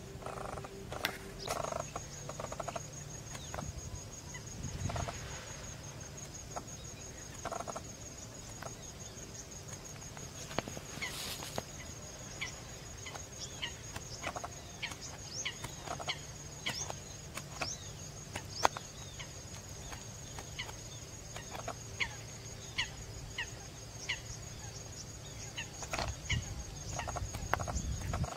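Outdoor wetland ambience with birds calling: many short chirps and quick downward-sweeping whistles, over a steady high-pitched rapid trill and a low rumble.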